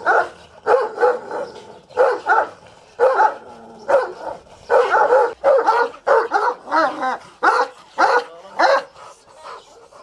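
Kangal shepherd dogs barking over and over, short loud barks coming about two a second and thinning out near the end.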